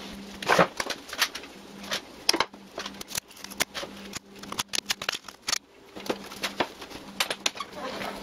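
Irregular sharp clicks and taps from a hand-held camera being carried and handled, with footsteps, over a faint steady hum.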